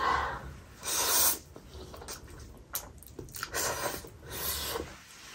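Close-up eating sounds of spicy instant noodles: loud slurps and hissing breaths through the mouth from the chili heat, with wet chewing between them.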